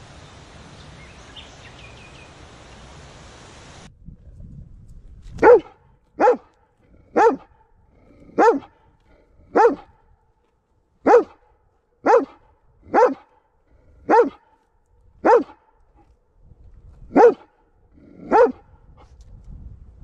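A steady outdoor hiss that cuts off about four seconds in, then a dog barking: about a dozen single, short barks roughly a second apart.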